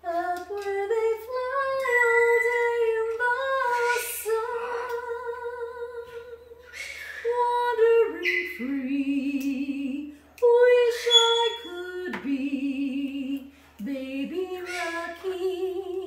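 A woman singing solo and unaccompanied, in long held notes with vibrato, phrase after phrase with short pauses for breath.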